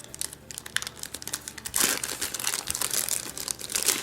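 Plastic wrapping crinkling and crackling as a pack of cards is handled, with a louder rustle about two seconds in.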